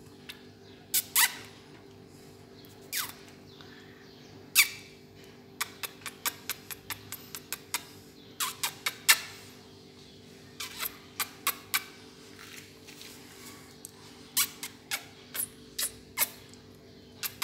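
Kittens giving short, high-pitched mews again and again, in irregular runs, over a steady low hum.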